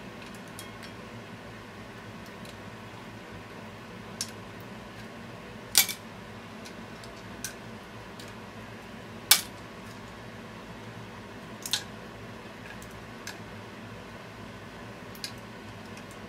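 Chopsticks handling cooked clams in an aluminium frying pan of bubbling clam broth: about seven sharp clicks of shell and chopstick tip against the pan and other shells, two of them much louder, over a steady hiss.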